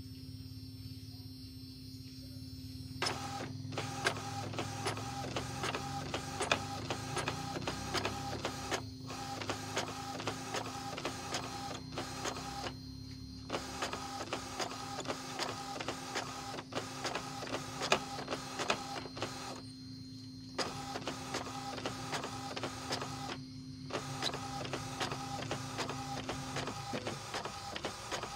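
Epson L565 inkjet printer making a copy: the print-head carriage shuttles with rapid clicking over a steady hum, with a few short pauses between passes. It is a test copy after the belt, sensor and rail were cleaned of dirt and old grease, and the owner takes it to show the grinding noise is cured.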